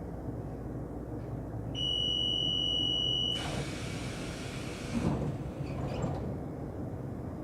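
Taiwan Railway train door warning buzzer sounds one steady high tone for about a second and a half, followed at once by a sharp hiss of air and a thud as the doors shut. A steady low rumble from the train carries on underneath.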